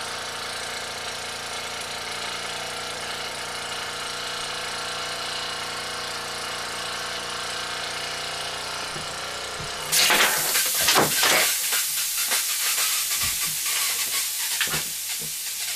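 Court Lodge Mk1 toy steam engine's oscillating cylinder running at speed with a steady sound. About ten seconds in, steam suddenly hisses out loudly with irregular spitting and crackling as the engine stops. The trunnion bolt has worked loose, letting steam escape at the cylinder's port face.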